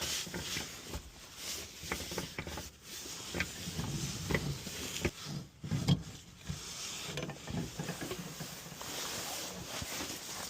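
Irregular scraping, rustling and short knocks of hand tools working on a gas pipe fitting, with one sharper knock about six seconds in.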